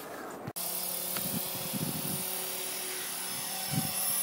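Electric Blade RC helicopter hovering low, its motor and rotor giving a steady high whine that sets in abruptly about half a second in.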